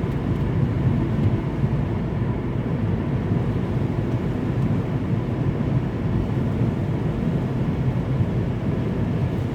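Steady road, tyre and wind noise heard from inside a car's cabin cruising at about 60 mph on a snowy, icy highway in strong wind.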